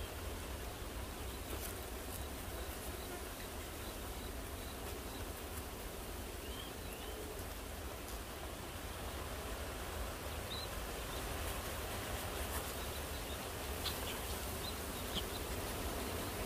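Outdoor ambience: a steady hum of insects over a low rumble, with a few faint short high chirps scattered through it.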